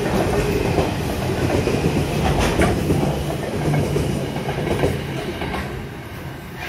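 Coal hopper wagons of a long freight train rolling past close by: a steady rumble with wheels clicking over rail joints. The sound eases off over the last second or two as the end of the train goes by.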